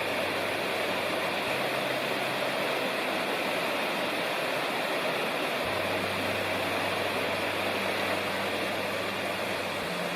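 Mountain stream cascade: water rushing steadily over rocks. A faint low hum sits underneath and drops out for a few seconds midway.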